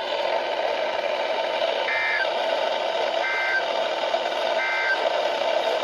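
Emergency Alert System end-of-message data bursts on a NOAA Weather Radio channel: three short two-tone digital chirps a little over a second apart, marking the end of the warning. A steady radio static hiss runs underneath.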